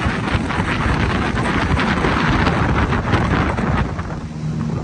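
Wind buffeting the microphone of a wake-surf boat under way, over the rush of the boat's engine and water. About four seconds in the wind eases and the steady hum of the engine comes through.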